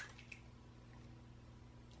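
Raw egg dropping out of its shell into a glass bowl of softened cream cheese: a short wet splat right at the start and a smaller one just after. Then near silence.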